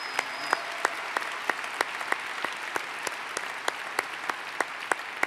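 Crowd applauding, with sharp, louder claps about three a second from one person clapping close to the podium microphone.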